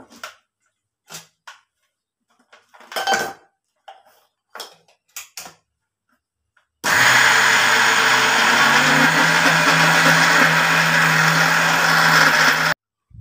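A few light knocks, then an electric mixer grinder (mixie) switches on about halfway through. It grinds soaked rice, cucumber and jaggery into a coarse kaltappa batter with a steady loud whir for about six seconds, then stops abruptly.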